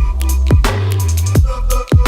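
Electronic dance music with a heavy sustained bass line and punchy drum hits about three times a second.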